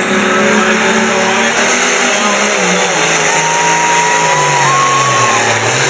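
Turbocharged diesel pulling tractor, held at high revs to build boost, then dropping in pitch about two seconds in as it takes up the weight-transfer sled and pulls away under full load. A high whine rises gently in the second half.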